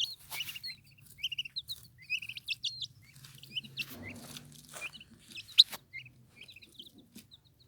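Turkey poults peeping, a steady run of short high chirps. A few sharp clicks come in between, the loudest a little past halfway.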